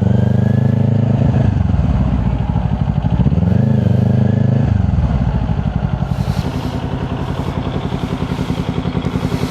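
Kawasaki Ninja 400 parallel-twin with a Yoshimura exhaust slowing down. It revs up briefly about three seconds in, then drops to a low, steady, pulsing note near idle for the second half.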